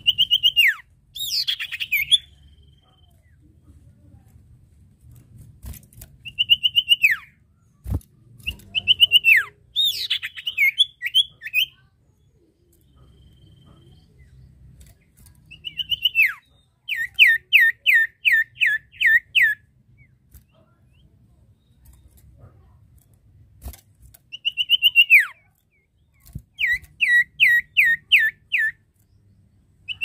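Common iora (sirtu/cipoh) calling to a rival. It gives drawn-out 'nyiull' whistles that slur downward, and twice these run on into a quick string of five to seven short falling notes. The calls come in bouts a few seconds apart, with a single soft knock about eight seconds in.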